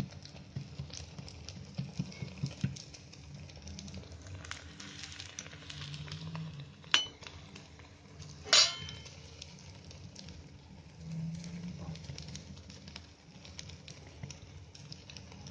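Kitchen handwork: soft pats and taps of wet hands pressing vada dough flat on a plastic sheet, over a low steady hum. Hot oil sizzles faintly around a frying vada. About seven and eight and a half seconds in come two sharp clinks, the loudest sounds.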